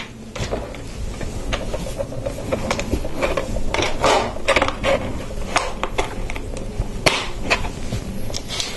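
Plastic Lego bricks and plates clicking and clattering as pieces are picked from a loose pile and pressed together on a tabletop, with irregular sharp clicks and knocks.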